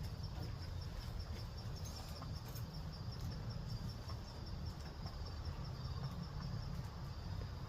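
Insects, likely crickets, chirping in a steady fast rhythm of about five chirps a second, over a constant low rumble.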